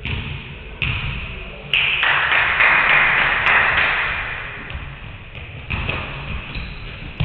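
Basketballs bouncing on a hardwood gym floor: several separate thuds, each ringing on in the echo of the large hall, with a louder stretch of echoing noise between the second and fifth seconds.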